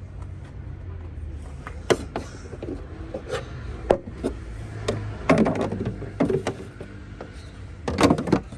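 Hand tools working on a car battery terminal to disconnect it: scattered sharp metallic clicks and knocks, with a stretch of clattering and rubbing near the middle.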